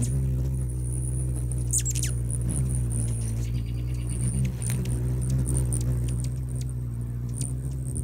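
Hummingbirds hovering right at the microphone: the steady low hum of their wingbeats, wavering a little in pitch as they shift position, with short, sharp high chips scattered throughout.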